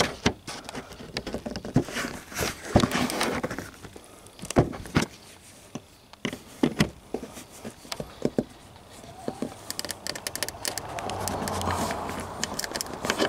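Irregular clicks and knocks of a hand tool on metal as a taillight mounting nut inside a car's trunk is worked loose, with a quicker run of clicking near the end.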